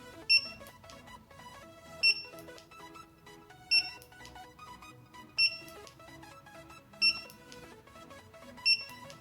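Short, high-pitched electronic beeps from the Starline A93 car alarm system in function-programming mode, six single beeps evenly spaced about 1.7 seconds apart. Quieter background music plays underneath.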